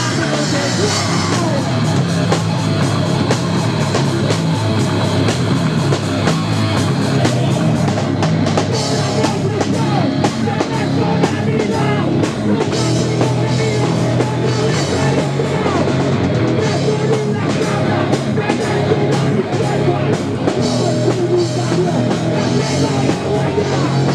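Live punk/metal band playing loudly: electric guitar and drum kit with a shouted lead vocal. The drums hit hard and fast through the middle.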